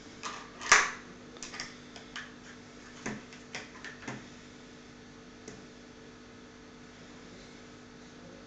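A toddler's plastic fork and plastic plate clicking and tapping on a plastic high-chair tray: about ten light, irregular knocks over the first four seconds, the loudest about a second in, and one more about five and a half seconds in. A faint steady hum runs underneath.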